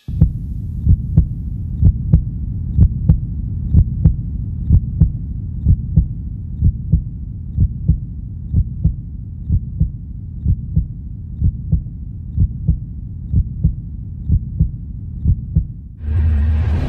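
Heartbeat sound effect: regular low thumps, about two a second, over a steady low hum, used as a suspense effect. Near the end it gives way to a louder, deeper swell.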